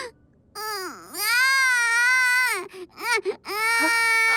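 A young toddler's voice crying: a long wail that rises and falls, a few short sobs, then a second long wail.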